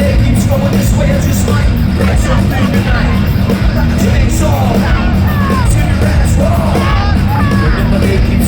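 Live nu-metal band playing loudly, heavy bass and drums, with shouted voices over it.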